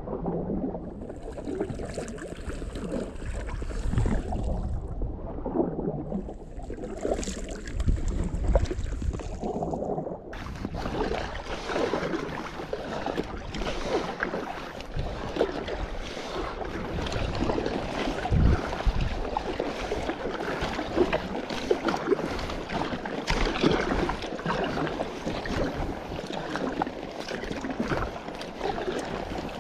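Kayak paddle strokes splashing through lake water beside an inflatable kayak, with wind on the microphone.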